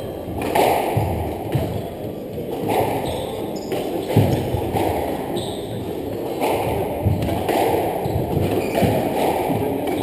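A squash rally: the ball cracking off rackets and the court walls every half second to second, with players' shoes squeaking and feet hitting the wooden floor, in a reverberant court.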